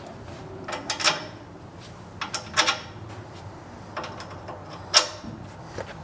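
A few short clicks and knocks of parts being handled at a car's rear axle while a brake-bracket template is fitted to the axle flange, the sharpest knock about five seconds in.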